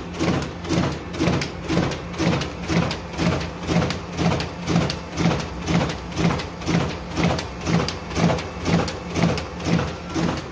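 Riso CV3230 digital duplicator running a print job, feeding and printing sheets in a steady rhythm of about two a second.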